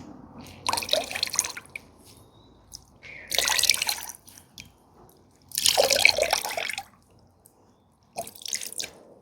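Water splashing and streaming back into the soaking water as a soaked hand-knitted alpaca sweater is gently squeezed out, in four separate gushes about two seconds apart.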